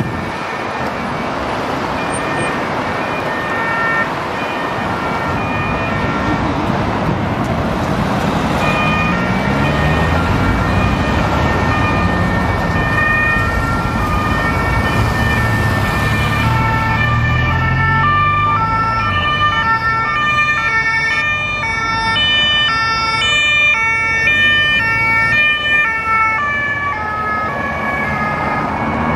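Two-tone sirens of a police motorcycle escort, several overlapping and stepping back and forth between two pitches, thicker from about halfway through. Underneath are traffic noise and engines revving up as the convoy passes.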